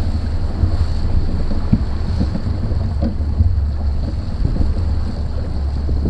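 Bass boat running on choppy open water: heavy wind buffeting on the microphone, with water rushing and slapping around the hull, at a steady level throughout.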